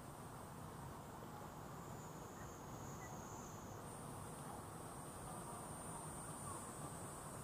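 Cicadas droning in the roadside trees: a steady high buzz that shifts up in pitch about four seconds in, over a low background rumble.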